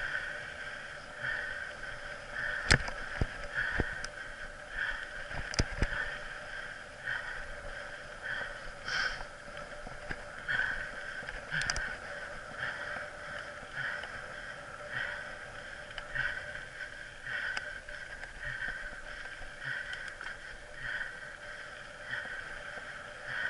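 Mountain bike rolling along a dirt singletrack, heard through a camera mounted on the bike or rider: a steady rushing noise that pulses about once a second, with sharp knocks and rattles from bumps, a cluster of them a few seconds in and a few more scattered later.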